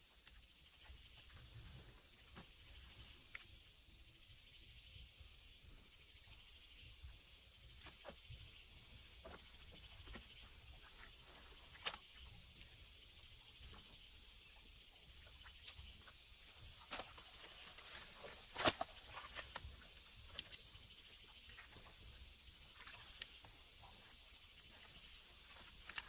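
An insect calling in the open, its high-pitched call repeating evenly about every second and a quarter. Scattered small clicks and rustles of movement sound through it, with one sharp click about two-thirds of the way in.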